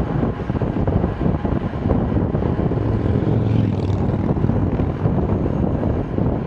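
Wind rushing and buffeting over the camera microphone on a fast bicycle descent: a steady, loud low rumble.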